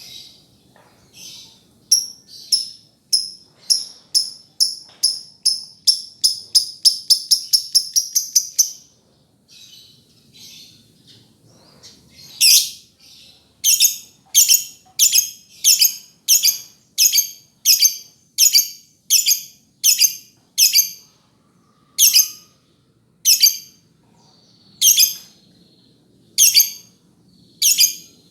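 Lovebird chirping: a series of sharp, high notes that speeds up into a fast trill over the first several seconds, then after a short softer lull a long run of loud, piercing single chirps, about one to two a second.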